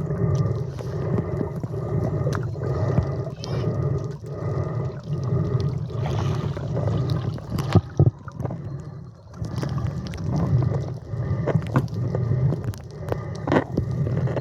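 Muffled water sloshing and gurgling, swelling and fading about once a second, with a few sharp knocks.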